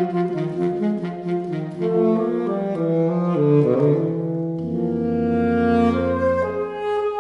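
Alto, tenor and baritone saxophones playing together in a contemporary classical trio: several lines moving note by note, then held chords over a long low baritone note from a little past halfway.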